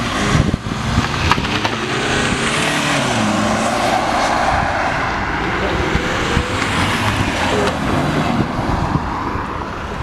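A modified car's engine revving hard as it accelerates away, with a burst of sharp exhaust crackles about half a second in. Another rising rev follows, then steady engine and tyre noise that slowly fades.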